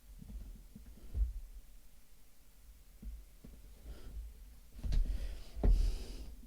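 Packaging being handled during an unboxing: soft low knocks, then, near the end, a louder stretch of rustling with a couple of thumps.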